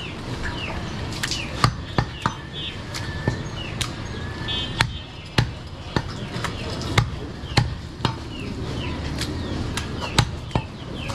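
Butcher's cleaver chopping goat meat on a wooden log chopping block: a run of sharp chops at an uneven pace, roughly one every half second to second.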